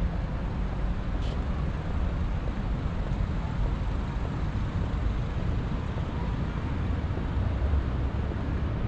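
Steady road traffic noise from cars on the avenue alongside, a continuous low rumble.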